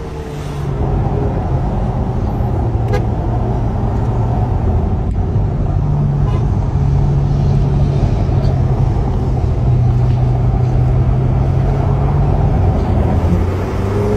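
Ferrari F8 Tributo Novitec's twin-turbo V8 running at a steady cruise, a loud low drone heard from inside the cabin, swelling a little in the first second and then holding even.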